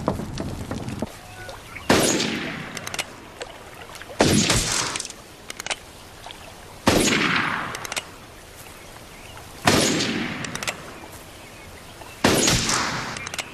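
Five revolver shots, about two and a half seconds apart, each a sharp crack followed by a long echoing decay.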